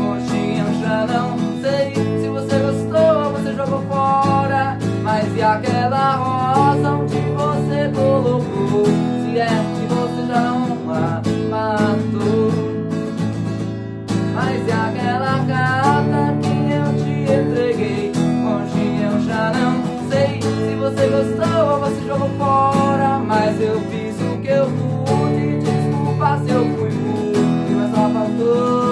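Acoustic guitar strummed while a man sings the melody over it. About halfway through the sound dips briefly and comes back abruptly.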